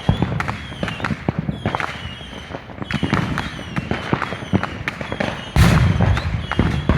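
Fireworks going off: a rapid, irregular string of sharp pops and crackles, with a louder rushing burst about five and a half seconds in.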